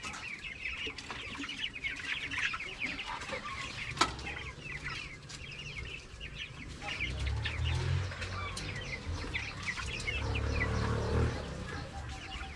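A flock of poultry clucking, with many short high peeps all through. There is a single sharp knock about four seconds in, and a low rumble twice in the second half.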